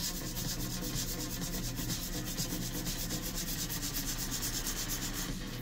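Granular seasoning rattling in a clear plastic shaker, shaken rapidly and evenly throughout.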